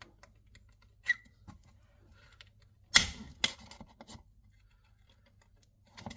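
Sharp plastic clicks and clacks as a wall socket is worked free of its mounting with a screwdriver: a single click about a second in, then a quick cluster of clacks about three seconds in.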